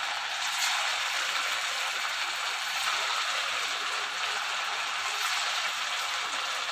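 Potato smiley snacks deep-frying in hot oil in a steel kadai: the oil sizzling with a steady, even crackle of bubbles.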